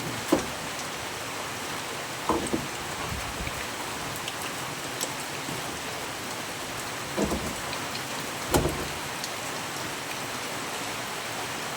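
Steady hiss of rain falling, with a few scattered knocks and clunks over it.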